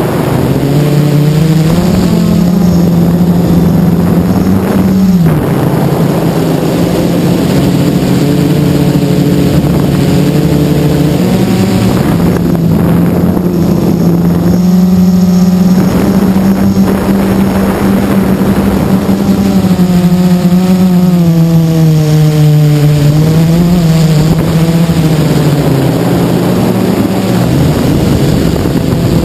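E-flite Blade 350QX quadcopter's brushless motors and propellers, heard from the camera on board: a loud, steady buzzing drone whose pitch shifts up and down several times as the motors speed up and slow down in flight.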